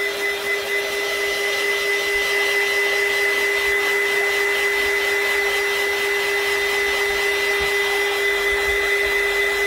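Handheld craft heat gun running steadily, blowing hot air to dry a coat of hairspray on a tumbler. Its fan gives an even whir with a steady hum and a high whine.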